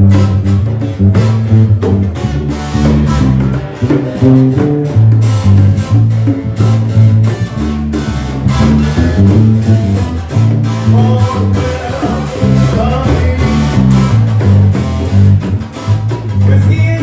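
Live band music played up close: a guitar picking a riff over deep plucked bass notes, with a hand drum keeping the beat.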